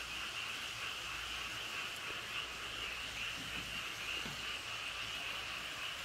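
A chorus of many frogs calling at once, a steady, dense chorus with no pauses.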